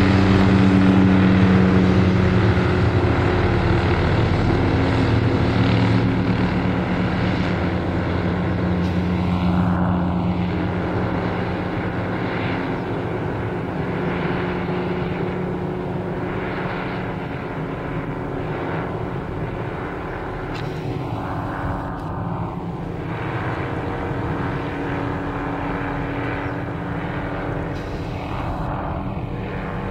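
Police MD 500-type helicopter flying low overhead: a steady turbine-and-rotor drone, loudest near the start and easing off over the first dozen seconds or so as it moves away, with a slow whooshing sweep in the tone now and then.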